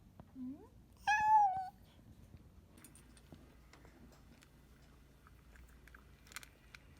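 Domestic cat meowing once, about a second in, a clear pitched meow preceded by a short, low rising chirp. Faint small clicks and rustles follow.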